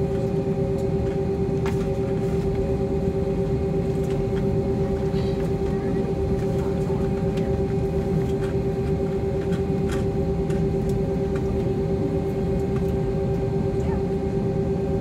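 Airbus A321-231's IAE V2500 turbofans at idle heard from inside the cabin: a steady hum over a continuous low rumble.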